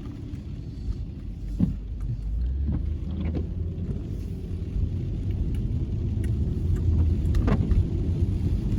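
Car driving, a steady low engine and tyre rumble heard from inside the cabin, with a couple of brief sharp clicks.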